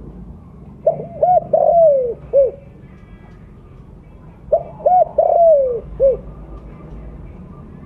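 Spotted dove cooing loudly, two song phrases about three and a half seconds apart. Each phrase is a quick run of short coos, then one longer falling coo and a final short coo.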